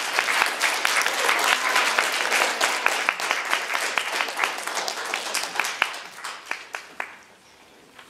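Audience applauding, the clapping thinning out to a few last separate claps and dying away about seven seconds in.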